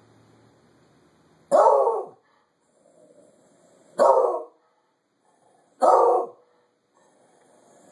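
A dog barking three times, single loud barks about two seconds apart, each about half a second long.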